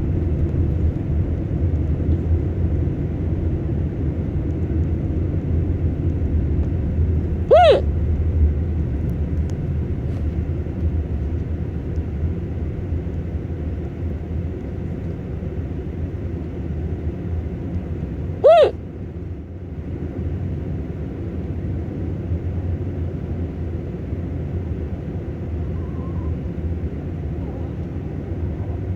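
Two sudden hiccups, about eleven seconds apart: each is a short, sharp, pitched catch in the throat. They sit over a steady low road rumble like that heard inside a moving car.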